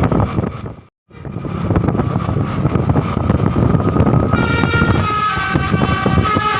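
A multi-tone telolet musical bus horn starts playing about four seconds in, several tones stepping up and down in a short melody, over steady vehicle rumble. The rumble cuts out completely for a moment about a second in.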